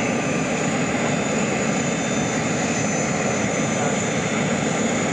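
Steady turbine whine and rush from the Airbus A380's auxiliary power unit running while the aircraft is towed with its main engines shut down, a few thin high tones over an even roar.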